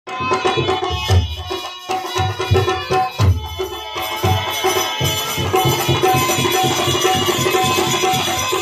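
Live devotional bhajan music with no singing: a hand drum keeps a steady beat, about four strokes a second, under held melody notes.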